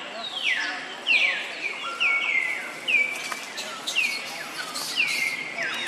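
Repeated high-pitched animal calls, each sliding sharply down in pitch and then holding briefly, about one or two a second.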